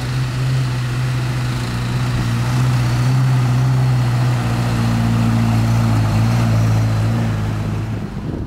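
Lifted Toyota pickup truck's engine running at a low, steady pitch as it drives slowly on grass, cutting off abruptly near the end.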